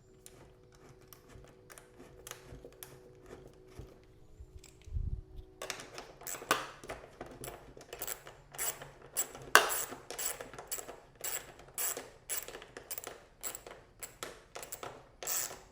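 Metal hand tools on an exhaust mounting bolt: faint handling clicks and a dull thud about five seconds in, then a quick run of sharp metallic ratchet-like clicks, several a second, as the bolt is driven in and snugged.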